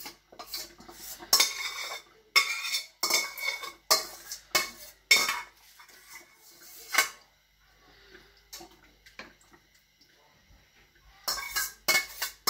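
A spoon knocking and scraping against the inside of a stainless steel pot as thick sauce is emptied out: repeated ringing metallic clinks, roughly one or two a second. They thin out about two-thirds of the way through, then pick up again near the end.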